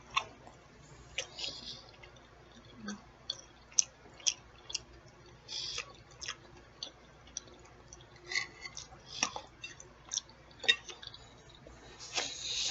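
Close-miked chewing with wet lip smacks and mouth clicks at irregular intervals, several in some seconds. A longer breathy rush comes near the end.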